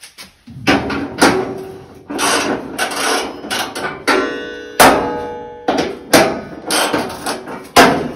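Repeated metallic clanks and knocks of tools against a sheet-steel panel board enclosure during installation work. One clank just after four seconds rings on briefly.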